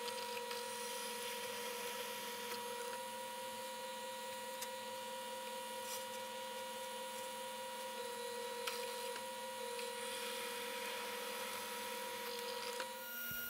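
Bench drill press running with a steady hum while pin holes are drilled through carbon fiber handle scales clamped to the blade, with a few faint ticks.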